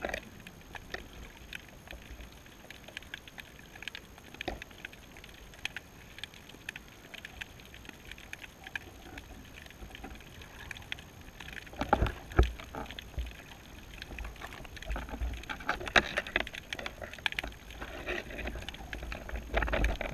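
Underwater sound at a baited seabed camera housing: scattered clicks and knocks throughout, with louder low thumps about twelve seconds in and again over the last few seconds.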